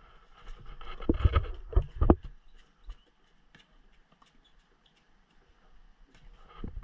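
A basketball bouncing several times in quick succession on the concrete court, a run of dull thumps about a second in. Faint scattered taps follow.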